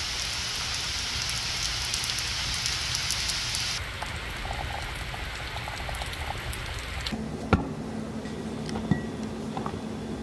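Steady rain falling on a concrete patio and puddles, a close, even hiss that changes slightly about four seconds in. About seven seconds in it gives way to a measuring cup scooping flour in a glass bowl, with two sharp knocks over a low steady hum.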